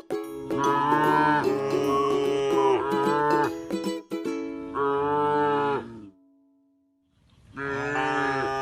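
A cow mooing in several long, drawn-out calls over background music with a plucked ukulele or guitar. The sound drops out almost completely for about a second and a half after the third call, then a fourth moo begins.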